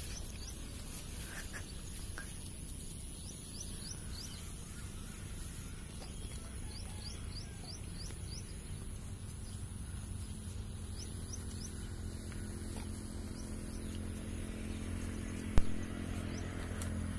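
Rural outdoor ambience: a steady low rumble with a run of short rising bird chirps about three to six seconds in, and a thin high steady tone above it. One sharp knock sounds about a second and a half before the end.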